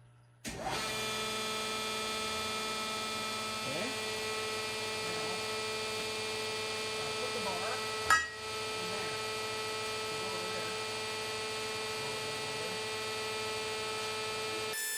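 Large metal-cutting bandsaw switched on about half a second in, its motor running with a steady hum and whine while it cuts through a steel bar. A single sharp knock comes about eight seconds in.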